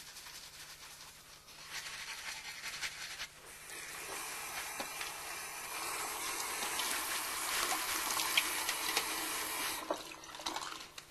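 Toothbrush scrubbing for the first few seconds, then a bathroom sink faucet running steadily into the basin. The faucet is shut off about ten seconds in, leaving a few small clicks.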